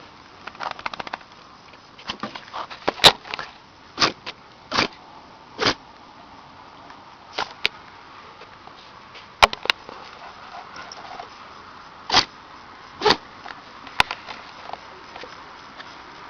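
A cow sneezing, about a dozen short, sharp nasal blasts at irregular gaps of roughly a second or more.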